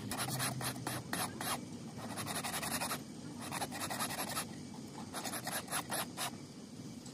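Hand file rasping back and forth across the broken end of a steel band saw blade, quick strokes several a second, stopping about six seconds in. The blade end is being filed thin so the two ends lie flush for brass brazing.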